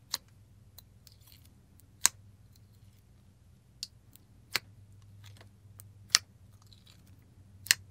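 Thick glossy slime being poked and pressed with a finger in its tub, giving a series of separate sharp little clicks and pops, about seven spread over several seconds.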